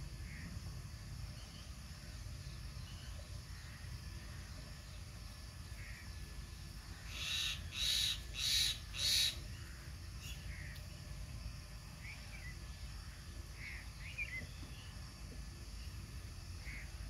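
A crow cawing four times in quick succession, harsh calls about half a second apart, over a low steady rumble and a few faint chirps of small birds.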